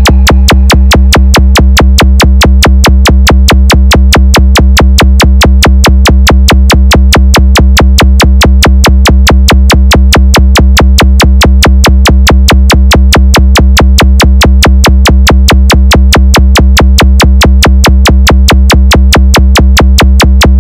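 DJ sound-check 'vibration' beat: a very loud, steady electronic bass tone pulsed in rapid, perfectly even beats, about six a second, without change.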